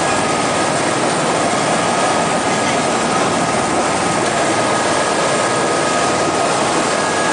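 Tour helicopter's turbine engine and rotor heard from inside the cabin: a loud, steady rush of noise with a thin, steady high whine over it.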